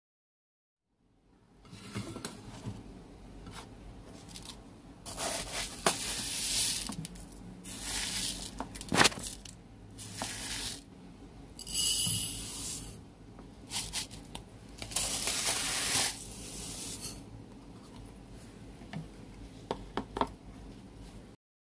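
Kitchen handling sounds at a stainless-steel sink: ceramic bowls being moved and set down, making scattered knocks and clinks, with several short bursts of noise about six, twelve and fifteen seconds in.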